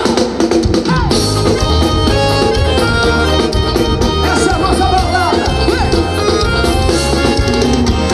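Live band music through a concert PA: a drum kit keeping a steady beat under the band, with the singer's voice coming in over it at times.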